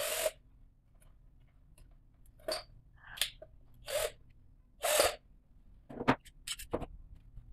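Wiring a push-button contact block: a run of about seven brief clicks and scrapes, irregularly spaced, as a wire is fitted and its terminal screw is driven in with a cordless drill-driver.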